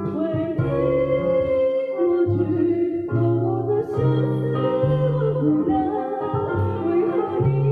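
Live band music: a woman sings into a handheld microphone over band accompaniment, with a trumpet playing alongside and a bass line moving in short steady notes.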